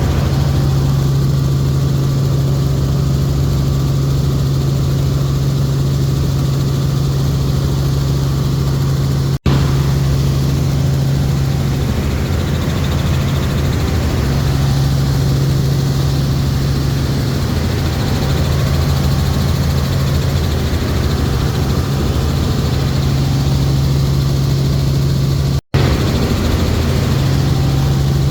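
Helicopter heard from inside the cabin: a loud, steady drone of engine and rotors with a strong low hum, cut by two momentary gaps in the sound.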